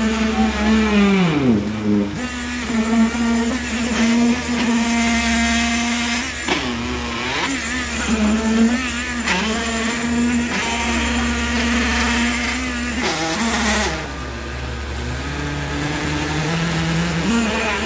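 Concrete poker vibrator running in wet concrete: a steady loud hum that dips sharply in pitch several times, over a steady low rumble.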